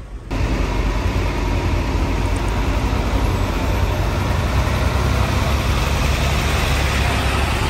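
Diesel engine of a loaded cargo truck running close by as the truck rolls slowly past, a steady, loud rumble with a broad noise over it, setting in abruptly a moment in.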